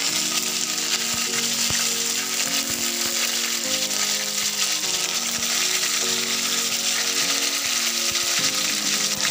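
Fresh curry leaves and cumin seeds sizzling hard in hot oil as a tempering (tadka), a dense steady hiss with small pops. A background music track with sustained notes plays under it.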